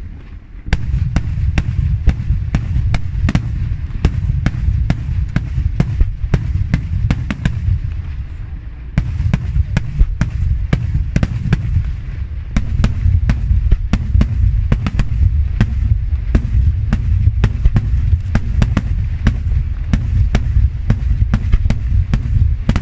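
Daytime fireworks display: a rapid, continuous volley of aerial shells bursting with sharp bangs, several a second, over a steady low rumble. The barrage eases briefly about eight seconds in, then picks up again and grows denser.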